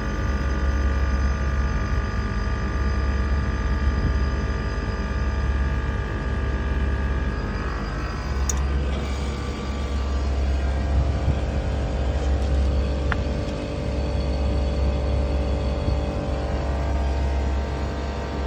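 Actron Air outdoor unit running, its replaced digital scroll compressor and condenser fan giving a steady hum of several tones, with a deep rumble that swells and eases in long stretches. The compressor is running fully loaded, direct online, because its unloader solenoid coil is not energising.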